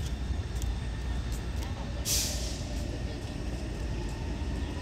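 Steady low rumble of traffic, cut by a short sharp hiss of released air about two seconds in. Near the end a faint whine starts to rise as an approaching Taipei Metro train's traction motors pick up.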